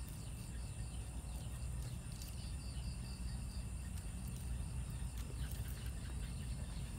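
Insects trilling and chirping: two steady high trills, and bursts of a rapid repeated chirp that come and go. Under them is a steady low rumble, with a few faint clicks.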